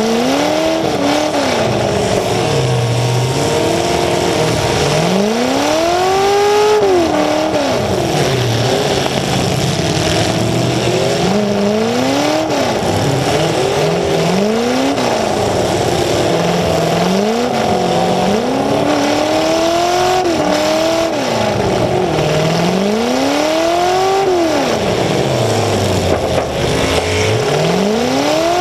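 Demolition derby car's engine blaring through open exhaust stacks, revving up and falling back again and again, its pitch swelling and dropping every couple of seconds as the car drives forward and backs up.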